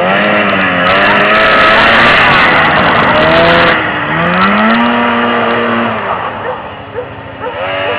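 A 1978 Arctic Cat Pantera 5000 snowmobile's engine revving up and down as the machine is spun around, with a loud rushing noise over it between about one and four seconds in. The engine falls back briefly about seven seconds in, then picks up again near the end.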